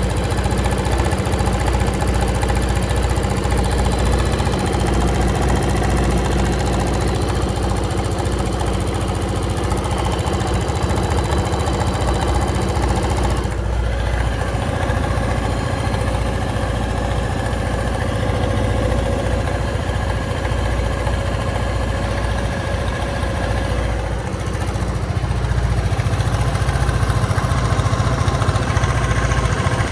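Motorcycle engine idling steadily with an abnormal noise whose source is unknown; the owner finds it most obvious when the engine is cold. The running dips briefly about halfway through and gets slightly louder near the end.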